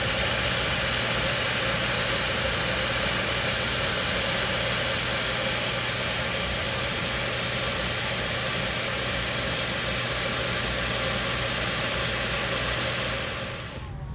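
Steady machine noise: an even hiss with a low, constant hum, unchanging until it cuts off near the end.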